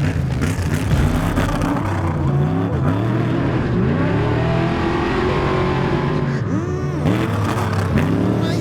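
Off-road race truck engine revving up and down repeatedly under hard driving, its pitch rising and falling about once a second.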